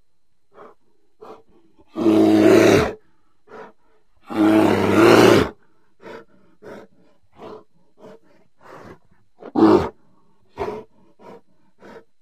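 Grizzly bear roaring: two long, loud roars, about two and four and a half seconds in, then a string of short, quieter calls, one of them louder near the end.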